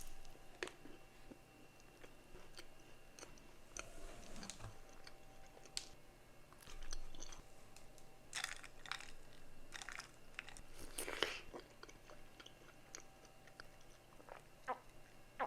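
A person biting and chewing crunchy food: scattered crisp crunches and clicks, with a louder cluster of crunches about eleven seconds in.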